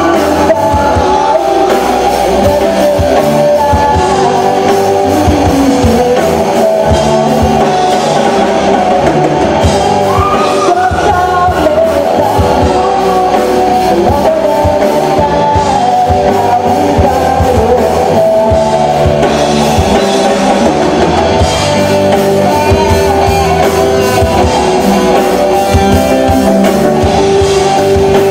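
Rock band playing live: a singer over electric guitars and a drum kit, loud and continuous.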